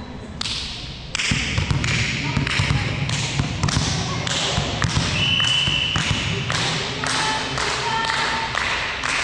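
Repeated thuds and knocks on a volleyball court, several a second, with a brief high squeak or whistle-like tone about five seconds in.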